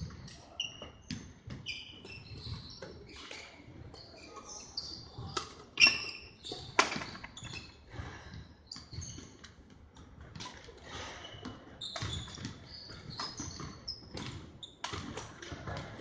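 Badminton play on a wooden sports-hall floor: many sharp racket strikes on shuttlecocks, with shoes squeaking in short, high chirps. The loudest hits come about six and seven seconds in.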